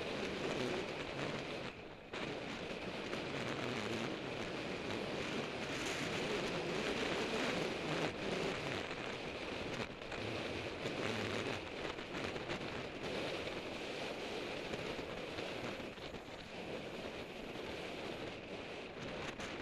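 Steady rush of wind and road noise from a road bike racing at about 30 mph, heard through a Contour HD action camera's microphone; it dips briefly about two seconds in.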